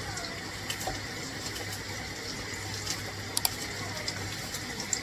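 Water running steadily from a tap, with a few light clicks about three and a half seconds in.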